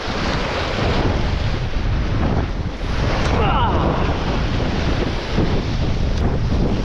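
Strong wind buffeting the microphone over the rush of rough surf. About halfway through, a short, wavering pitched sound rises briefly above it.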